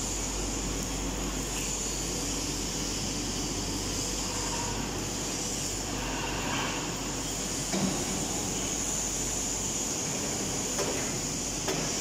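Steady factory-floor noise in a steel fabrication workshop: a constant low hum and hiss from machinery, with a couple of brief faint knocks about eight seconds in and near the end.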